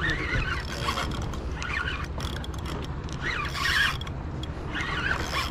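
Penn Slammer III 6500HS spinning reel being cranked under load, its gears whirring in repeated surges as a hooked fish is reeled in.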